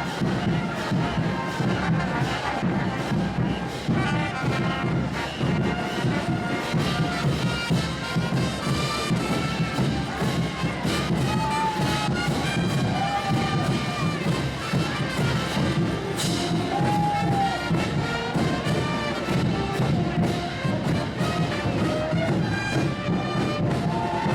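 Brass band music with a steady beat, as played in a Bolivian street parade.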